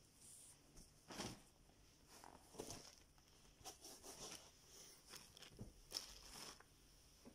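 Faint rustling and handling noises in short, irregular bursts as a plush white bathrobe is moved about.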